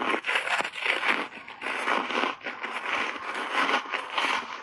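Crunchy foam-textured reshaped ice coated in matcha powder being bitten and chewed: a dense, unbroken run of crisp crackling crunches.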